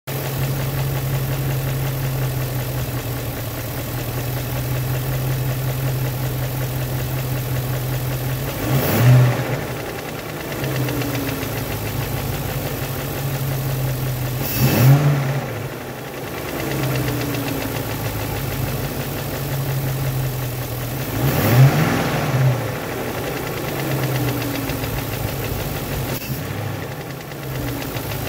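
BMW M62 V8 engine idling with a noise from its top end. The throttle is blipped three times, about six seconds apart, so the revs rise briefly and fall back each time.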